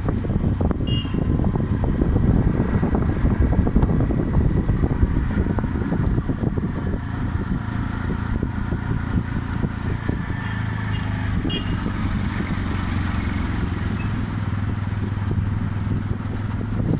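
Small engine of a three-wheeled auto-rickshaw running steadily as it drives along a road, heard from inside the cab.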